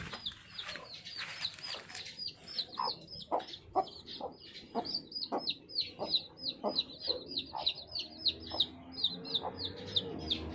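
Baby chicks peeping: a steady run of short, high, falling peeps, several a second, with lower clucking calls mixed in.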